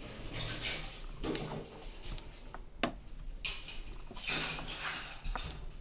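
Handling noise of fingers pressing and shifting on a laptop motherboard: scattered soft rustles and light knocks, with one short sharp click a little before the middle.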